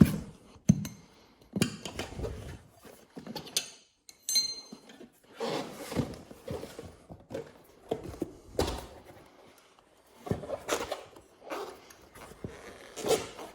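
Steel tire irons clinking, knocking and scraping against the wheel rim as the second bead of a rear motorcycle tire is levered off, in an irregular string of short metallic clinks and thunks.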